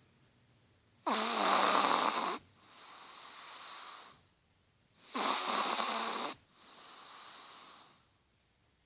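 Chihuahua snoring through two breaths. Each is a loud snore on the in-breath, about a second and a half long, followed by a softer, longer out-breath.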